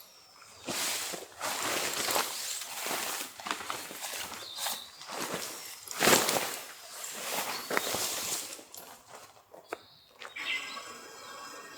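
Irregular footsteps with rustling. About ten and a half seconds in, the sound cuts suddenly to steady insect chirping with a repeated high trill.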